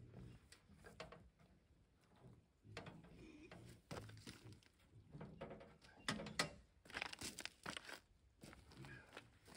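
Faint scattered clicks, knocks and rattles of hand adjustments on a portable sawmill, its engine not running; the loudest knocks come about six to eight seconds in.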